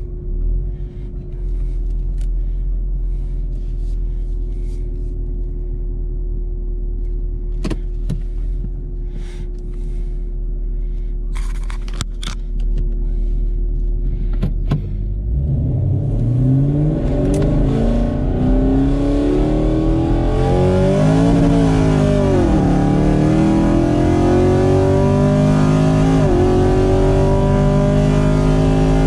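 Car engine heard from inside the cabin, running low and steady with a few clicks, then going to full throttle about halfway through in a street race. The revs climb hard and are broken by two upshifts, pulling to about 100 mph.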